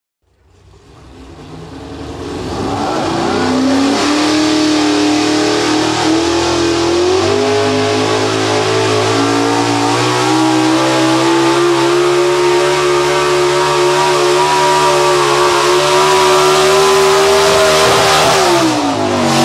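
The Hemi V8 of a cab-forward Dodge pickup pulls a sled at full throttle, held at high revs with its pitch creeping slowly upward as the truck drags the weight down the track. It fades in over the first few seconds, and near the end the revs fall off as the driver lets off at the end of the pull.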